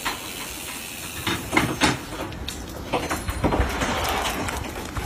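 Irregular footsteps and scuffs on an asphalt path as people walk with a group of dogs, with a brief stretch of wider noise about three and a half seconds in.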